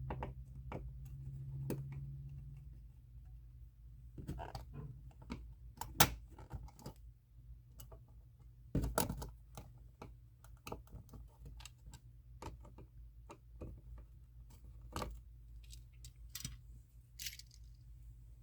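Scattered small clicks, scrapes and knocks as the faceplate of a wall electrical outlet is worked loose and taken off, with a few sharper knocks among them. A low steady hum runs underneath.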